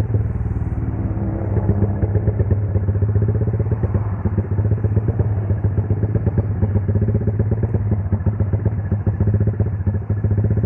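Motorcycle engine and exhaust running steadily at an even speed, with rapid, regular firing pulses; the bike runs an aftermarket Juken 5 ECU tune set up for exhaust sound effects.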